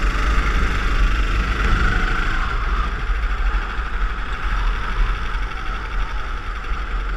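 Go-kart engine running steadily under way, heard from a camera mounted on the kart, with heavy wind rumble on the microphone.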